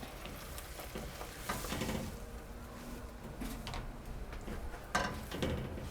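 Cream sauce sizzling in a frying pan as it is stirred, with a louder burst of stirring about a second and a half in and a sharp knock of the utensil near the end.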